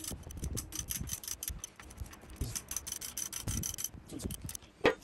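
Socket ratchet clicking in a fast run as it turns the nut on a bolt-and-spacer puller, drawing a cast-iron valve guide up out of the engine block. The clicking stops about four seconds in, and a single sharp knock follows near the end.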